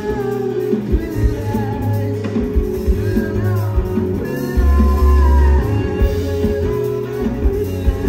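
Rock band playing live: electric guitar, deep bass notes and drums, with a sung vocal line over them.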